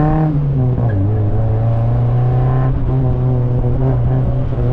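The twin-cam inline-four of a 1987 Alfa Romeo Spider 2000, with a straight pipe in place of its rear muffler, driven hard. The revs fall away at the start, dip again with a short break about two and a half seconds in, then hold fairly steady.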